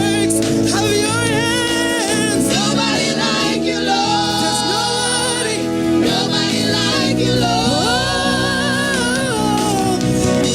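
Gospel worship singing: several voices carrying a melody with vibrato over steady keyboard or band accompaniment.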